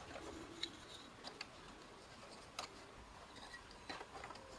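Faint, scattered wooden clicks and taps as small barrel staves are picked up and set against one another inside a metal hoop, with the sharpest knock about halfway through.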